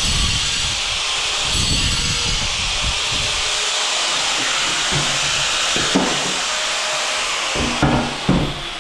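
Angle grinder cutting into a hard ceramic tile with a steady, loud grinding hiss. Near the end it is switched off and its whine falls away as the disc spins down, with a few knocks as the tile is handled.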